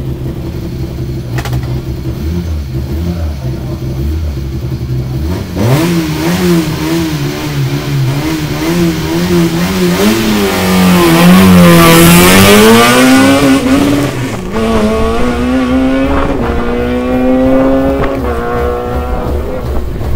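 A hatchback race car's engine idles, then is revved and held high, pitch rising and falling with the throttle. It launches, loudest at the moment it pulls away, and accelerates off through the gears with several quick upshifts, each a short break followed by a rising pitch.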